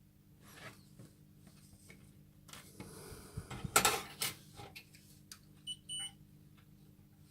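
Clicks and handling noise from working on the hob's parts, with a louder rustle in the middle, then two short high electronic beeps near the end.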